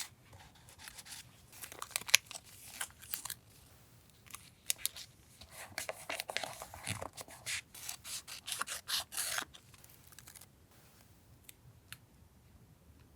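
Scissors cutting paper in two runs of crisp snips with paper rustling, the second and longer run ending a few seconds before the close.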